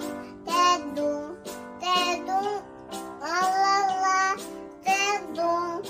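A young girl singing a children's song in short phrases, over a steady instrumental accompaniment.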